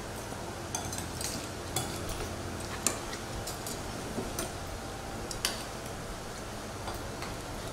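Spoons and forks clinking and scraping against bowls and plates as several people eat: scattered light clicks at irregular moments over a steady low room hum.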